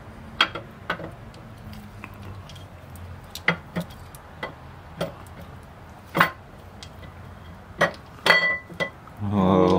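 Scattered sharp metal clinks and taps, some ringing briefly, from tools and engine parts being handled during engine reassembly.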